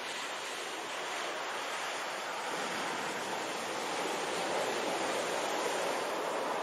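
Sea surf breaking on a gravel beach: a steady rush of waves and foam that swells a little past the middle.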